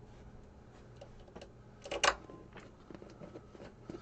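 Small clicks and knocks from 3D printer parts being handled and fitted during assembly, with one louder clack about two seconds in.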